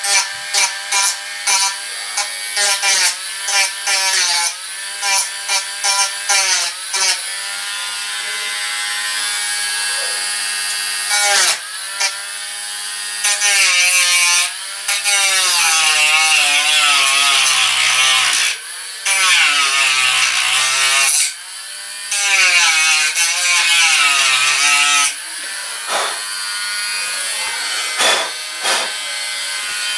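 Dremel Stylus rotary tool with a sanding wheel, sanding the cannon side wall of a model ship; its motor whine dips and rises in pitch as the wheel is pressed on and eased off. Short touches come first, then longer passes.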